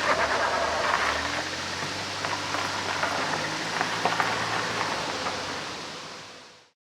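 Running water of a mountain stream, an even rushing with scattered small clicks, fading out near the end.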